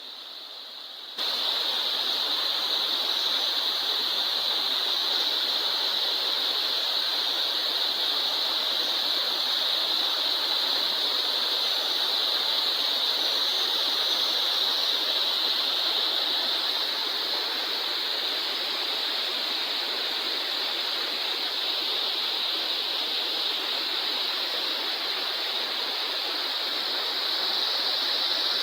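Oboadaka waterfall rushing: a steady hiss of falling water that comes in suddenly about a second in and holds steady.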